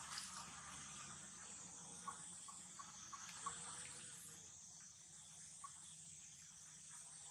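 Faint steady high hiss with a few soft, small clicks scattered through the middle.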